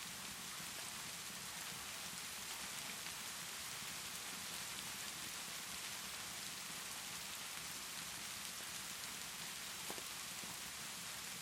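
Steady rainfall, an even hiss, with a few soft pops from a crackling wood fire; one sharper pop about ten seconds in.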